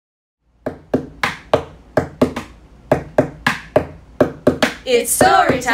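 A steady rhythm of sharp taps, about three a second, starting half a second in. A voice joins near the end.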